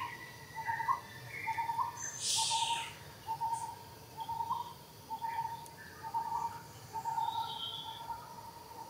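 A bird in the background repeating a short, hoot-like note about once every 0.7 seconds, with a brief hiss about two seconds in.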